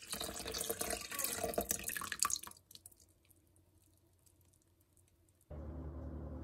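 Milky yeast mixture poured from a glass measuring cup into a stainless steel mixing bowl, splashing and trickling for about two and a half seconds, then stopping. A steady low-pitched hum comes in near the end.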